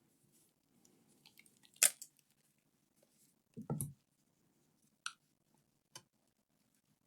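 Plastic handling noises from laptop battery packs being handled: a sharp click, a duller knock about halfway through, and two lighter clicks near the end.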